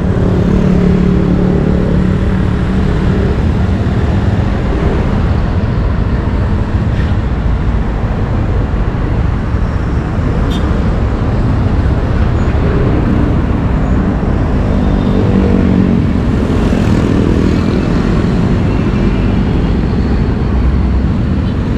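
Motorcycle riding in traffic: a steady engine hum over road and wind rush. The engine note stands out at the start and again past the middle of the ride.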